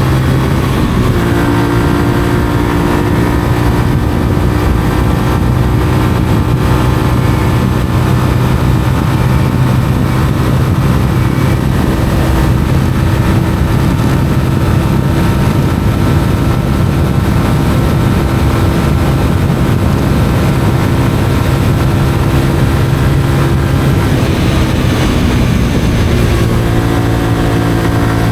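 Honda CBR125R's single-cylinder four-stroke engine, breathing through a Mivv aftermarket exhaust, running under way at fairly steady revs. The engine note shifts about a second in and again near the end.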